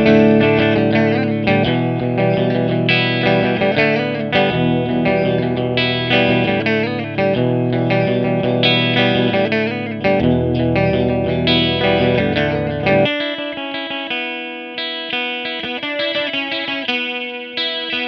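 Electric guitar playing a riff through a Small Clone–style chorus pedal (the Drunk Beaver JellyFish). The low notes drop out about 13 seconds in, leaving higher chords ringing.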